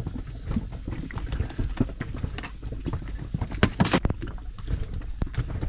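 Wind rumbling on the microphone, with irregular knocks and slaps of water against a small boat's hull.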